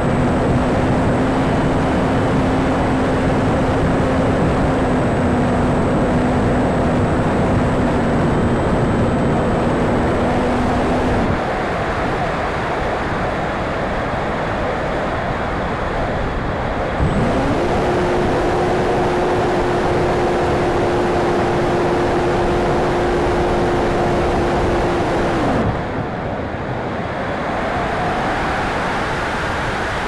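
E-flite Conscendo glider's electric motor and propeller running with a steady whine under a heavy rush of wind over the onboard camera's microphone. The motor cuts out about 11 seconds in, leaving only the wind, then spools up again about 17 seconds in at a higher pitch and winds down about 26 seconds in.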